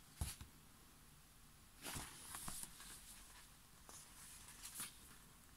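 Faint rustling and light taps of an album photobook's paper pages being handled, with the longest rustle about two seconds in.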